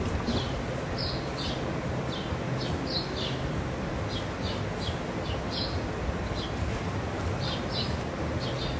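Steady rushing and churning of hot tub jets, with small birds chirping repeatedly: short, high, downward chirps, one to three a second.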